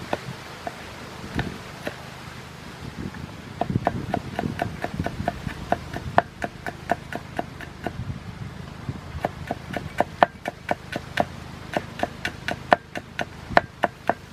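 Cleaver chopping chillies and garlic on a chopping board: quick, evenly spaced knocks of the blade, about three or four a second, thickening a few seconds in.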